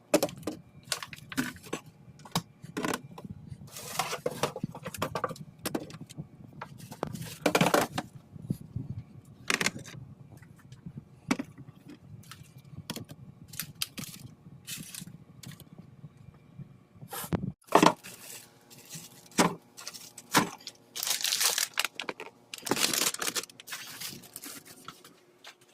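Irregular clicks, scrapes and short crinkling, tearing-like rustles of objects and packaging being handled, with a few louder bursts, over a faint steady hum.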